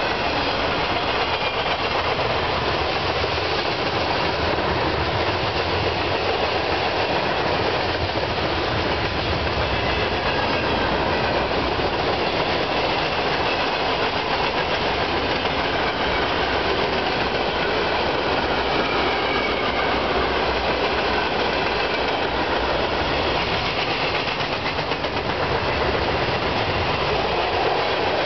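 Freight cars of a CSX manifest train rolling steadily past, steel wheels running on the rails in a continuous, even din.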